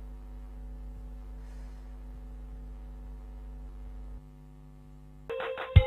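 A low, steady electrical-sounding hum with several held tones stacked in it; it drops back a little past four seconds in. Near the end, electronic music with a synthesizer and a drum-machine beat cuts in suddenly.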